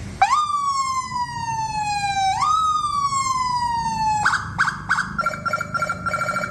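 Electronic vehicle siren sounding through its loudspeaker: the tone jumps up and slides slowly down in pitch, twice, each sweep about two seconds. About four seconds in it switches to a rapid pulsing tone at a steady pitch.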